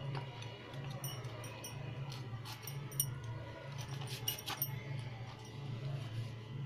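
A kitchen knife cutting cauliflower florets from the stalk on a plastic chopping board: scattered crisp snaps and taps, over a steady low hum.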